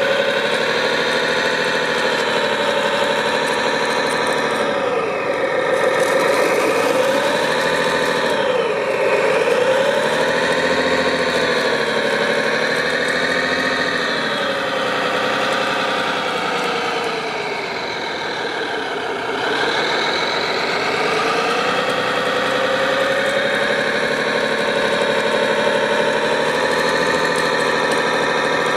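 Radio-controlled construction machine running continuously, its motors and gears whining. The pitch dips and climbs again several times as it slows and speeds up, most deeply around a third of the way in and again past the middle.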